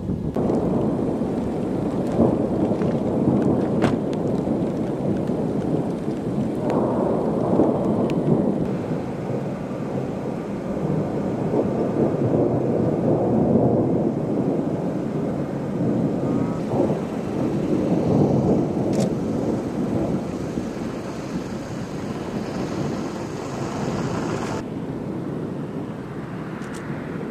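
Thunder rumbling in long, rolling swells over a steady hiss of rain; the hiss drops out abruptly near the end.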